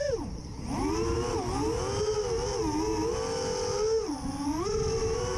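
Motor and propeller whine of a BuddyRC Magnet Stretch 3-inch racing quadcopter in flight, heard from a GoPro mounted on the quad. The pitch rises and falls with throttle, dropping sharply just after the start and again about four seconds in before climbing back.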